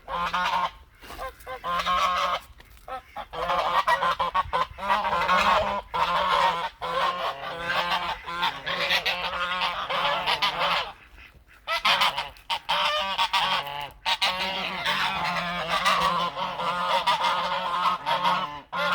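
A flock of farm fowl calling loudly, many honking calls overlapping almost without pause, with a few short lulls.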